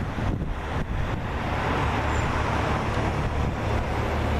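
A car driving past on the street, its road noise swelling and then fading, over a steady low rumble of traffic.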